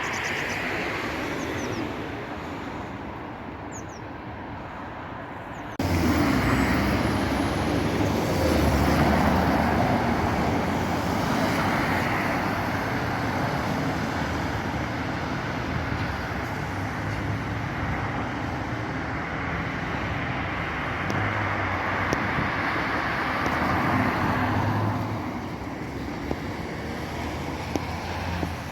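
Road traffic going past, a steady wash of vehicle noise. It jumps suddenly louder about six seconds in and drops back a little near the end.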